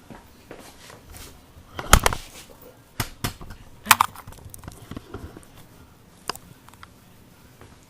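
A series of sudden sharp knocks and thumps: the loudest about two seconds in, then a few more around three and four seconds, and a lone one about six seconds in.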